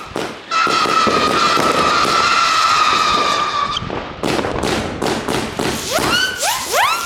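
Weco Night Howler fireworks battery firing: a steady shrill buzzing tone from its spinning whirl shots holds for about three seconds, followed by a run of sharp pops and crackles. Near the end several titanium howlers go up, each a rising whistle.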